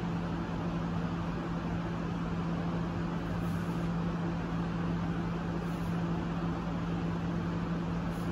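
A steady machine hum: one constant low drone over an even hiss.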